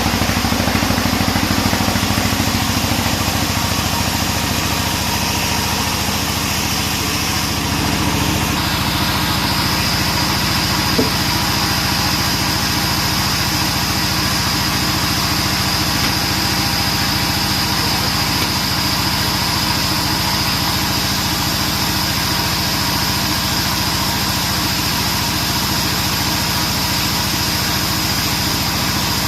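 A 42-inch band sawmill running steadily and sawing a teak log lengthwise. A steady machine drone carries throughout, and about eight seconds in it is joined by a steady high whine that holds, as the blade cuts through the log.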